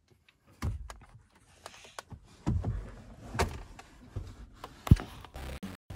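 A hand pressing and tapping on an SUV's dashboard screen and controls: irregular knocks and clicks with rustling handling noise, and one sharp knock near the end.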